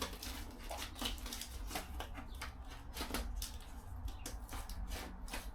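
Fiskars scissors cutting a sheet of sound-deadening mat in half: a run of short, irregular snips and rustles of the sheet being handled.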